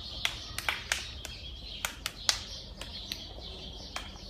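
Children clapping single sharp claps one after another at an uneven pace, about ten in a few seconds, imitating the firecracker bangs of a mascletà.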